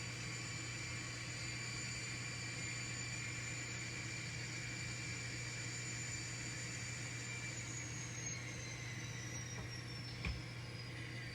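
Small electric motor of an N scale model locomotive running with a steady high whine over a low hum. The whine falls in pitch over the last few seconds as the locomotive slows, with one light click near the end.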